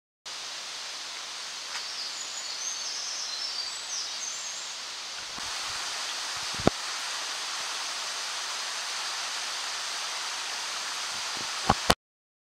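Forest ambience: a steady hiss of wind through the leaves, with a few high bird chirps in the first few seconds. Sharp clicks come once about halfway through and twice just before the end.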